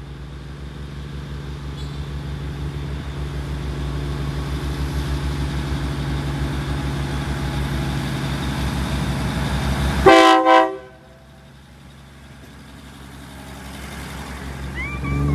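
Thai diesel railcar approaching along the platform, its engine and wheels growing steadily louder. About ten seconds in it gives two short horn blasts. After the horn the running sound drops away, then builds again as the cars roll past.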